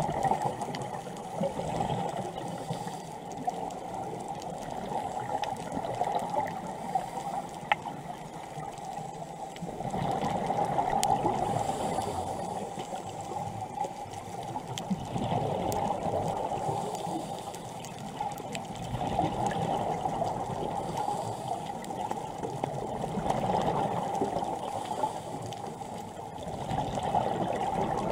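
Muffled underwater water noise, a rushing hiss that swells and fades every few seconds, with a few faint clicks.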